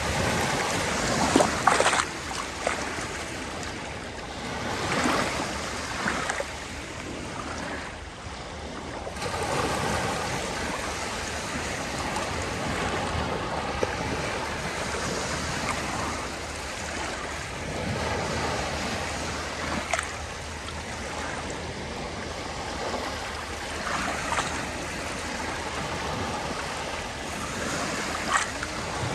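Sea waves washing in, a continuous rush that swells and eases every few seconds, with a few sharp splashes.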